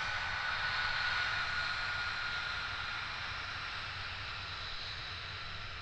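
The single Pratt & Whitney F135 turbofan of an F-35A taxiing at low power: a steady jet rush with a high whine that slowly falls in pitch, easing off a little toward the end.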